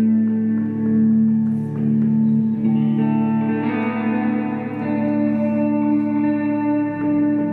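Electric guitar through an amplifier, playing long sustained notes that overlap and ring on. A new layer of higher notes comes in about halfway through.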